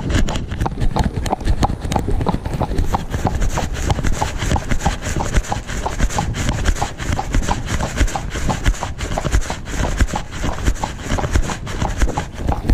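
A horse's hooves clip-clopping on a tarmac road at a trot, a quick, even rhythm of hoof strikes.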